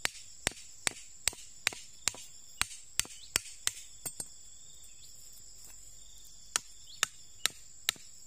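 Flat of a machete blade striking the tops of thin wooden stakes, driving them into the ground: about ten sharp knocks at two or three a second, a pause of about two seconds, then four more. Insects chirr steadily behind.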